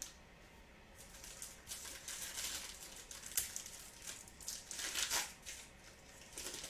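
Foil trading-card pack wrapper being torn open and crinkled. The crinkling starts about a second in and includes one sharp click partway through.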